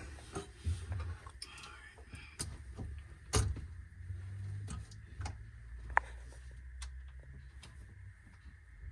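Clicks and knocks of a battery cable being connected to a car battery, with one loud knock about three and a half seconds in and a brief sharp squeak near six seconds.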